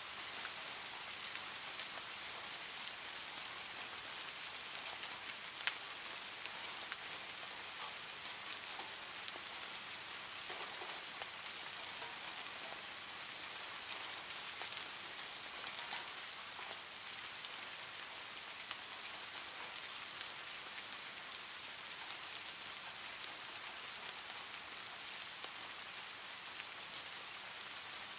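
Heavy rain falling steadily on a tin roof: a dense, even hiss with scattered individual drop taps, one sharper tap about six seconds in.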